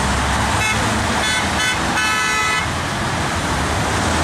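Car horns honking from passing traffic: a few short toots, then one longer honk about two seconds in, over the steady rush of road traffic.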